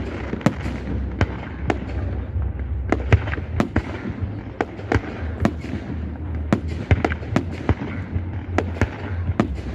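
Fireworks display: shells bursting in quick, irregular succession, several sharp bangs and cracks a second, over a steady low rumble.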